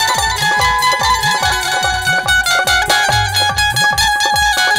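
Instrumental interlude of a Bundeli folk song: dholak and Roland Octapad electronic drums keep a quick steady beat of deep strokes, about three a second, under a high melody line.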